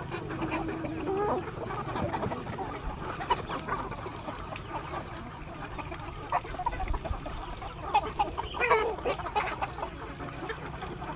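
Chickens clucking, with short calls scattered through and a drawn-out call near the start.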